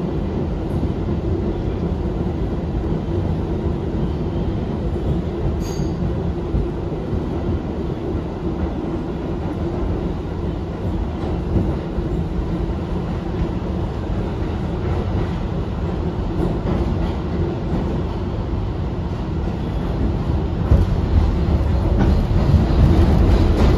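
An R62A New York City subway train running at speed, heard from on board: a steady rumble of wheels on the rails with a faint running tone. It grows louder from about 20 seconds in.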